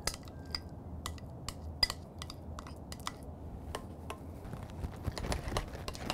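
Metal spoon tapping and clinking irregularly against a glass mixing bowl while stirring beef tallow into softened butter, with one sharper clink about two seconds in.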